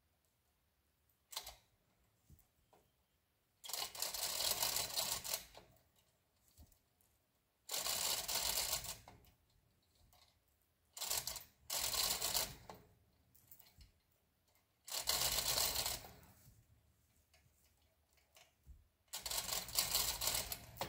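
Hand-operated 2-ton chain fall being worked in spurts: the hand chain is yanked and the hoist ratchets and clatters for a second or two at a time, about six times with pauses between, drawing in the load chain to tension a strap on a leaning maple.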